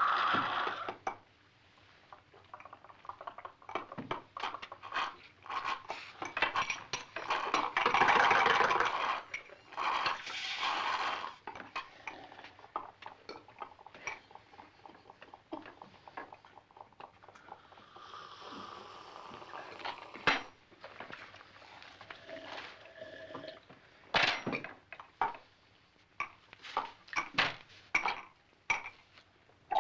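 A run of cartoon comedy mouth sound effects played one after another: short wet clicks, smacks and pops separated by pauses, with two longer noisy stretches about eight and ten seconds in and a quick cluster of clicks near the end.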